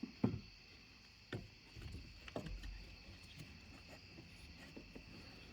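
Light clicks and knocks from a removed fuel pump assembly being handled and turned over: four scattered taps over a faint steady hum.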